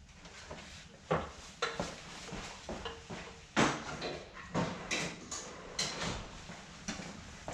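Irregular sharp clicks, snaps and clatters, about seven over a few seconds, of hand work on a car's old horn wiring: wires being snipped and a piece being broken off.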